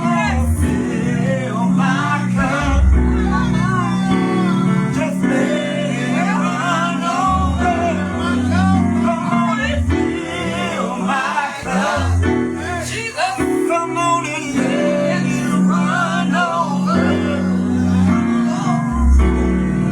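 Gospel music with a man singing over bass and guitar accompaniment.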